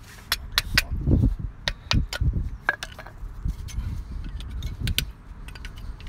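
Flat screwdriver prying worn front brake pads out of a VW Polo Mk5's caliper bracket: irregular sharp metallic clicks and scrapes of steel on the pad backing plates and bracket, with rustling of handling underneath.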